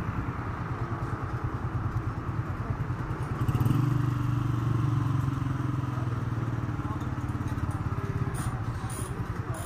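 Motorcycle engine running at idle with a steady, fast putter; it grows louder about three and a half seconds in, then eases back.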